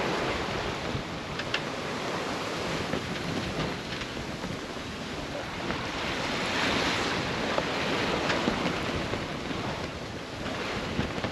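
Wind buffeting the microphone over the rush of water along a sailboat's hull, running fast downwind in a fresh breeze. The noise swells and eases, with a few faint ticks.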